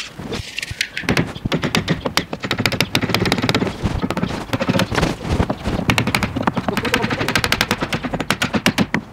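Rapid run of sharp wooden knocks, many a second, as a wooden panel is tapped down into the mortise-and-tenon joints of a wooden TV stand frame. It starts about a second in and goes on almost to the end.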